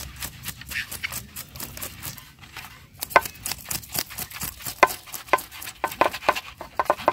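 A knife scraping scales off a raw fish held against a metal plate: quick, irregular scrapes and clicks, which grow denser and louder from about three seconds in.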